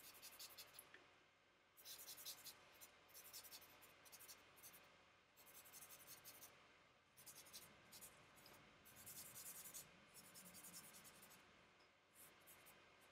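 Faint charcoal strokes scratching across sketchbook paper, coming in bursts of quick back-and-forth strokes with short pauses between them.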